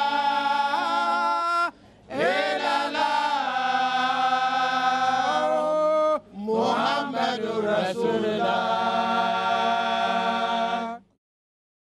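Voices chanting a devotional song in long held notes. The chant comes in three phrases with short breaks between them, some notes gliding up at the start of a phrase, and it ends about eleven seconds in.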